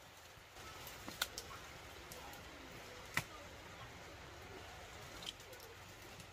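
Pumpkin vine shoots being snapped off by hand: a few sharp snaps, the loudest about a second in and about three seconds in, over a faint steady background.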